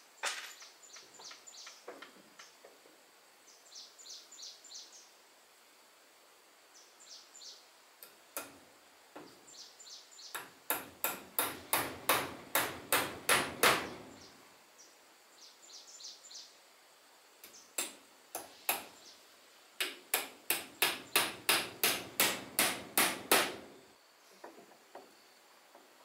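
Hammer driving nails into wooden cladding boards: scattered light taps, then two runs of rapid blows, about four a second, the second run starting about twenty seconds in.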